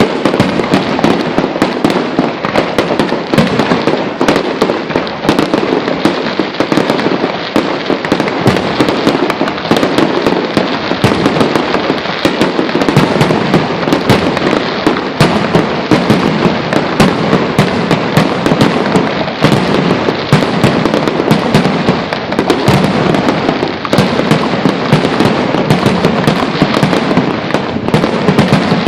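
Fireworks display in a dense, continuous barrage: many bangs and crackles a second, overlapping with no let-up.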